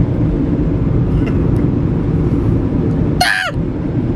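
Car cabin road and engine noise while driving: a steady low rumble. About three seconds in there is a brief high-pitched squeal with a curving pitch.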